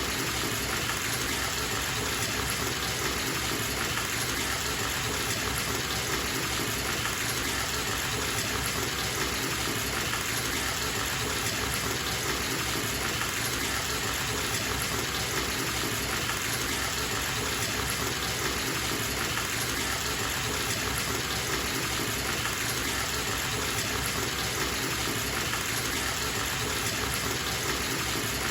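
Water gushing steadily from a tap into a filling bathtub.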